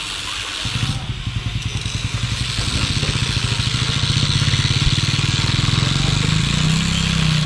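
Engine of a small tracked farm machine running, coming in strongly about a second in and rising slightly in pitch and loudness as the crawler drives off along the path.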